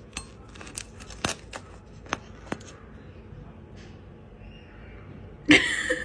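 A string of sharp clicks and knocks, about eight in the first two and a half seconds, from hands handling wooden objects. About five and a half seconds in comes a short, loud burst of noise.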